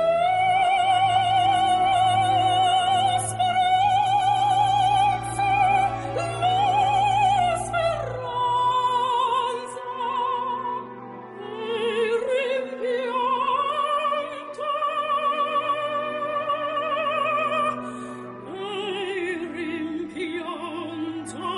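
Operatic singing: one voice holding long notes with a wide vibrato, a few seconds per note, over a steady low accompaniment.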